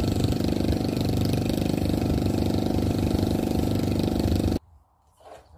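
An engine running steadily with an even low rumble, cutting off abruptly near the end.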